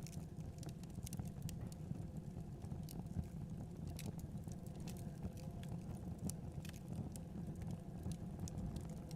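Wood fire burning in a fireplace: irregular sharp crackles and pops from the logs over a steady low rumble of the flames.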